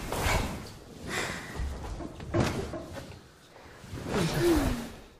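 Rustling and soft thumps of people moving on a sofa: cushions and clothing shifting in several short bursts, with a brief falling vocal sound a little past four seconds in.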